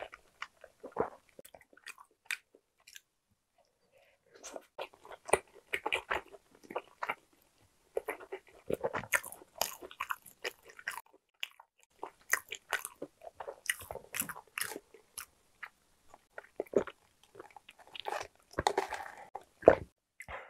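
A person chewing a mouthful of sausage bread roll, with moist mouth sounds that come in irregular clusters and a pause of about a second some three seconds in.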